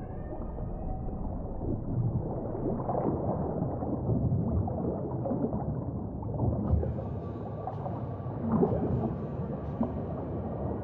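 Muffled water sloshing and gurgling heard through an underwater camera's waterproof housing, moving just below the sea surface. The sound grows brighter and more splashy about two-thirds of the way in as the camera nears the surface.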